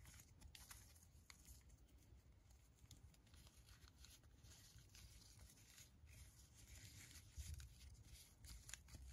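Near silence with faint handling sounds: soft rustling and small scattered clicks as a fabric tank top is pulled onto a plastic action figure.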